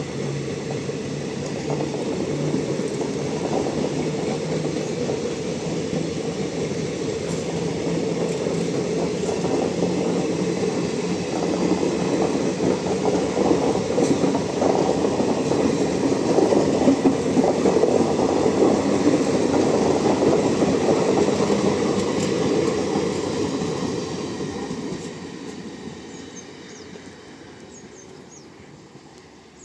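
Hussain Sagar Express passenger coaches rolling past on the nearby track: a steady rumble of wheels on rail that slowly grows louder, then fades away over the last few seconds as the end of the train moves off.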